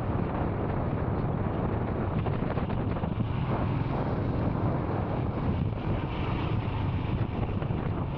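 Royal Enfield Scram 440's single-cylinder engine running steadily while riding, with wind rushing over the microphone.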